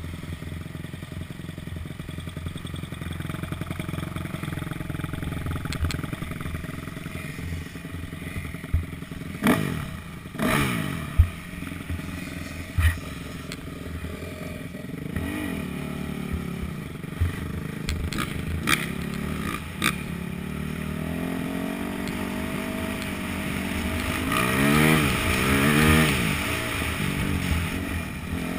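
Yamaha YZ250F dirt bike's single-cylinder four-stroke engine running at low revs, with short throttle blips around the middle and a quick series of rising and falling revs near the end as it picks up speed. A few sharp knocks are heard along the way.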